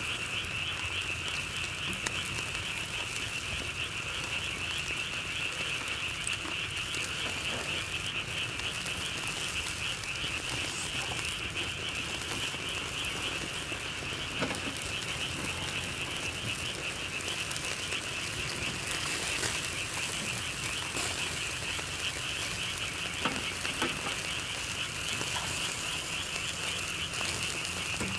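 A steady, dense chorus of calling animals, a high pulsing trill that never stops, with a few faint clicks over it.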